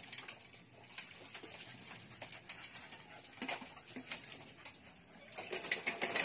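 Puppies moving about in a metal cage: scattered clicks and scrabbling of claws on the bars and plastic floor mat. The sound grows louder near the end, with a few short puppy whines.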